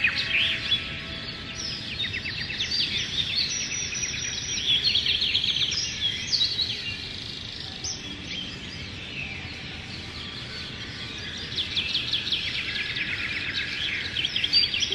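Songbirds singing, with rapid trills and quick descending chirps repeating throughout, over a steady rushing background. Soft ambient music tones sound faintly underneath.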